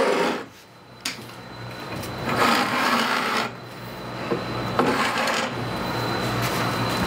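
Long metal front rail of a Harvey Big Eye rip fence scraping and rubbing as it is slid along the front edge of the table saw. There are a few rasping strokes, with a sharp click about a second in.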